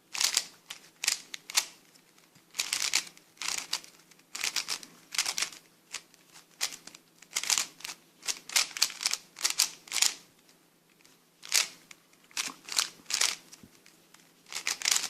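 Plastic Aolong Mini speed cube being turned fast in a solve: quick runs of clacking turns in irregular bursts with short pauses between them. The cube is dry and not yet lubricated.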